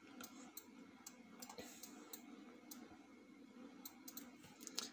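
Near silence: room tone with a few faint, scattered clicks of a computer mouse and keyboard.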